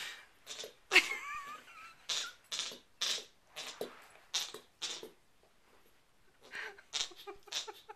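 A Bernese Mountain Dog puppy chewing and gnawing on a bowling pin: a string of short, crunchy bites about two a second, with a sharp knock about a second in and a short pause about five seconds in.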